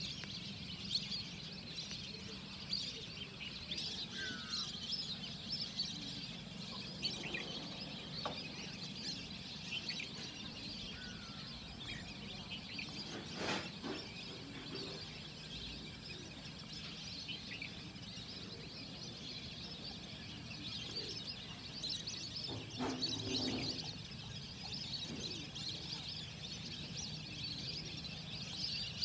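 Many small birds chirping at once in a steady, dense morning chorus, over a low steady hum. A louder, lower bird call stands out about three quarters of the way through.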